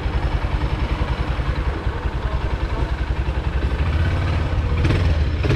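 Quad bike engine running while it is ridden, a steady rapid pulsing that grows a little louder near the end.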